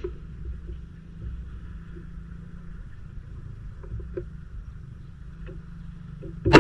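A steady low rumble, then near the end a single sharp shot from a QS Air Arms MK3 BT air rifle firing a 21-grain slug.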